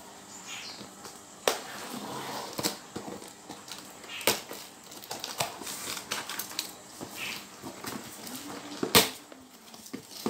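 A cardboard box wrapped in packing tape being opened by hand: tape crackling and cardboard rustling and scraping, with several sharp knocks, the loudest about nine seconds in.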